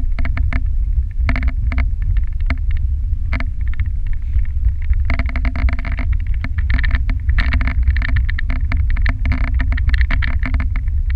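Dog sled moving over a packed snow trail: a steady low rumble from the runners, with frequent clicks and rattles from the sled that grow busier from about five seconds in.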